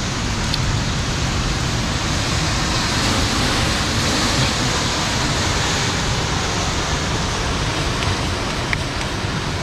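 Steady rushing noise of wind buffeting the microphone over the sea and surf against the rocks.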